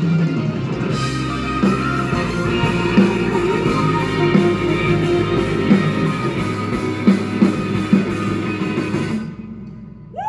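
Live band playing an instrumental passage on guitar and drums, with regular drum hits, that ends about nine seconds in. Crowd whoops begin right at the end.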